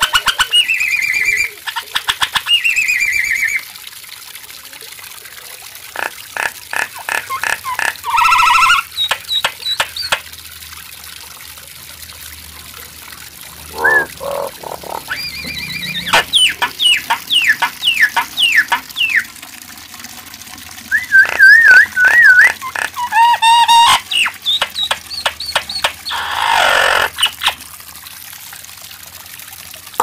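Caged common myna singing a varied song in bouts with short pauses: runs of rapid clicks, whistled notes that slide down in pitch, a wavering trill and harsh, gurgling croaks.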